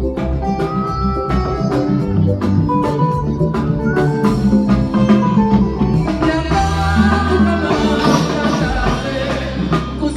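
A live band playing at a sound check, with held pitched notes over a steady beat of drum strikes.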